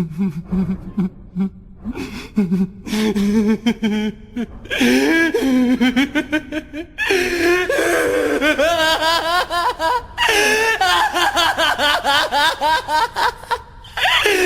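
A man's voice laughing, used as a ringtone. It starts as low, broken chuckles, then from about five seconds in grows into louder, higher, sustained laughter with brief pauses for breath.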